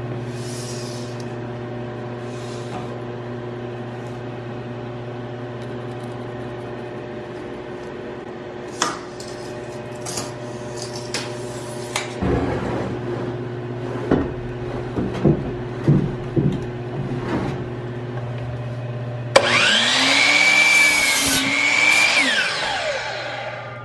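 Scattered clicks and knocks from a tape measure and a board being handled at the saw, over a steady low hum. About nineteen seconds in, a miter saw motor spins up and its blade cuts through a pine board, then winds down with a falling whine near the end.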